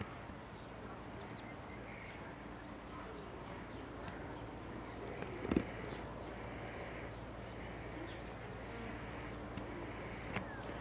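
Quiet outdoor ambience: a steady faint hiss with scattered faint chirps, a single knock about halfway through and a small click near the end.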